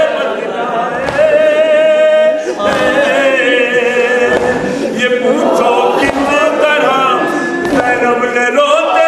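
Men's voices singing a nauha, a Shia lament, unaccompanied, in long, wavering held notes.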